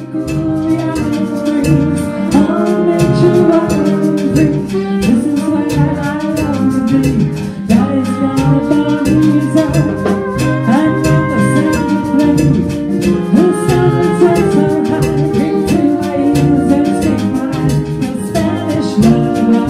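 A Latin band playing salsa-style dance music, with hand drums and drums keeping a steady beat under melody lines.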